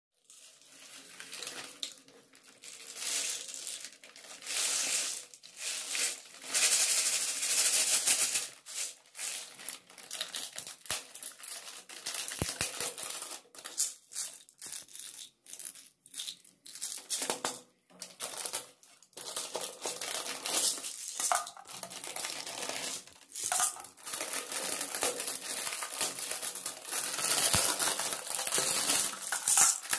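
Clear plastic packaging crinkling and rustling in irregular bursts as toy balls are pulled out of a plastic sleeve and their individual wrappers.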